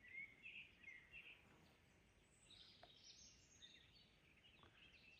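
Near silence with faint birdsong: a few short high calls in the first second or so, again around the middle and once more near the end.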